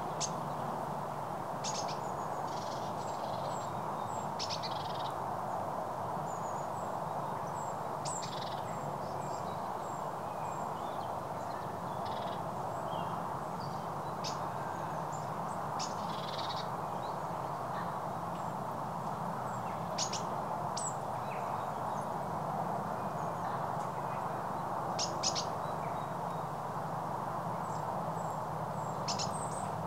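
Birds chirping and calling in short scattered notes and quick runs of high calls, over a steady rushing background noise.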